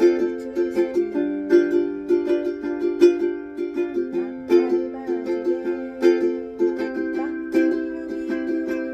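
Ukulele strumming chords in a calypso strum pattern, with a strong accented stroke about every second and a half between lighter strokes.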